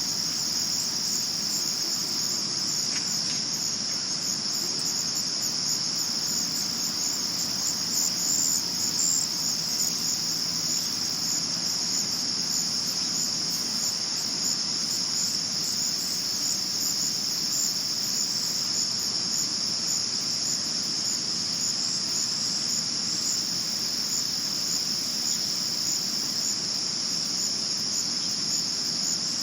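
Male crickets chirping, a steady high-pitched chirring that goes on without a break.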